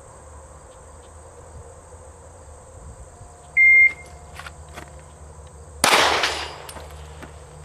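Shot-timer start beep, then a little over two seconds later a single shot from a 9mm Glock 43 pistol, with a short echo trailing off. Insects trill steadily in the background.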